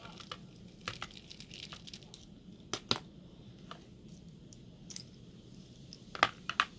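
Scattered sharp clicks and taps of small metal tools and padlock parts being handled and set down on a bench while the lock is taken apart, the loudest few close together near the end.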